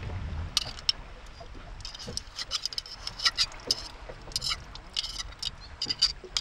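A knife blade clicking and scraping against a giant oyster's rough, crusted shell as it is prised open. The sound is a run of sharp, irregular clicks and scrapes. It follows a low rumble of wind and water that cuts off about half a second in.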